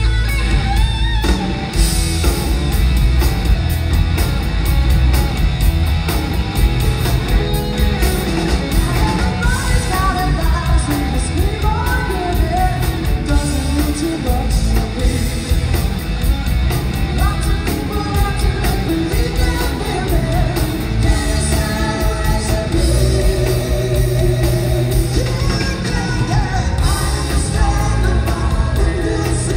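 A live rock band playing a song: electric guitars, keyboards and a drum kit, with sung vocals and backing singers.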